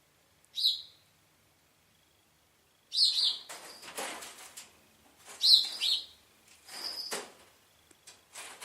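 A small pet animal making three short, high chirps, with breathy, rasping sounds between and after them.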